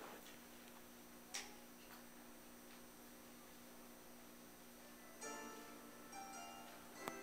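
Near silence with a faint steady hum and a brief click, then about five seconds in quiet instrumental music begins: the soft opening notes of a gospel song recording.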